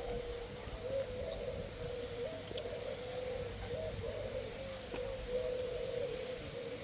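A dove cooing over and over, low soft notes that keep stepping briefly up in pitch, over a low rumble of wind and surf.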